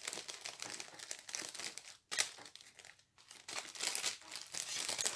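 Plastic packaging crinkling as it is handled, in a near-continuous crackle that drops out briefly about two seconds in and again around three seconds in.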